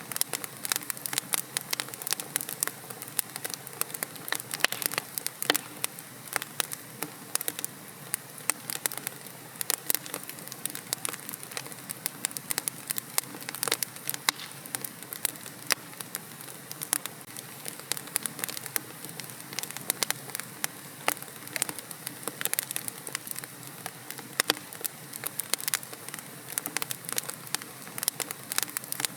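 Wood fire in a fireplace crackling, with dense, irregular pops and snaps over a soft steady hiss.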